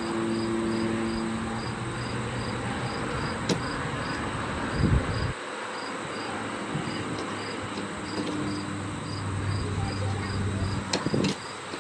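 Cricket chirping in an even rhythm, about three short high chirps a second, over a steady hiss and an on-and-off low hum.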